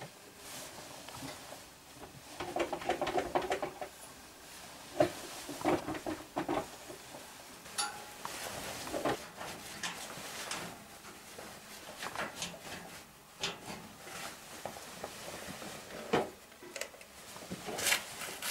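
Irregular clanks, knocks and scrapes of hands and clothing against the steel bars of a cave gate, with rustling in between. The busiest handling comes about three seconds in and again near the end.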